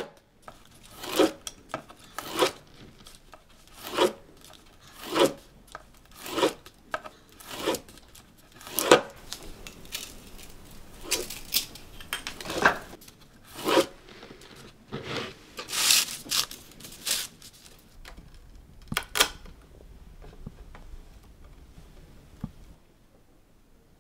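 Thin bamboo strips being split apart by hand, a short tearing stroke repeated about every second and a quarter, then more irregularly, dying away a few seconds before the end.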